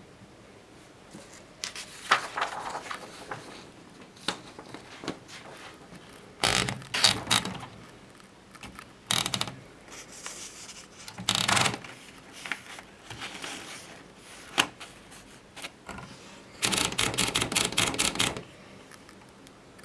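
Groma Kolibri portable typewriter being worked: irregular clicks and short clattering clusters from its keys and carriage mechanism, with a ratchet-like quality. Near the end comes a fast run of clacks lasting about a second and a half.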